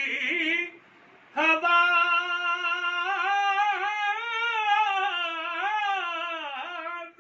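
A man singing a classical-style naat with no instrument heard. A short phrase, a break about a second in, then one long held note with wavering, ornamented turns in pitch that dips near the end.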